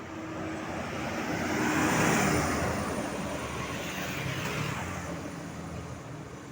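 A road vehicle drives past, its engine and tyre noise swelling to a peak about two seconds in and then fading away.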